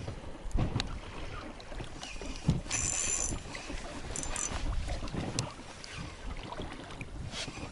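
Small waves lapping and sloshing against the hull of a small boat rocking on the water, with wind on the microphone and scattered light knocks. A brief high hiss sounds about three seconds in and again, shorter, about a second later.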